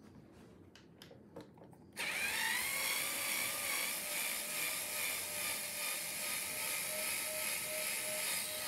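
Black+Decker cordless electric screwdriver backing a long screw out of the top of an amplifier cabinet. A few light handling clicks, then about two seconds in the motor starts with a quick rise in pitch and runs as a steady whir.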